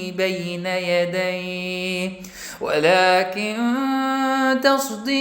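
A solo, unaccompanied male voice reciting the Quran in melodic tajwid style, drawing out long held notes. There is a short break for breath about two and a half seconds in, then the voice rises into another long sustained note.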